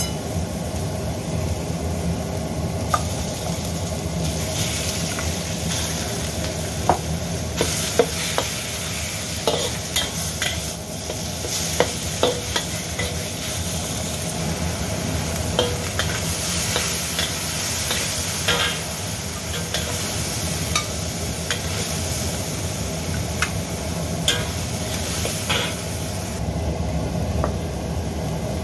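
Garlic and then minced meat sizzling in oil in a wok while a metal spatula stirs and scrapes, its edge clicking sharply against the wok many times. A steady low hum runs underneath.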